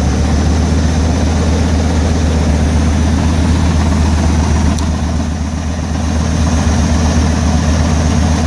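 Ford F-350's 6.8-litre V10 Triton gasoline engine running steadily at idle with a low, even drone.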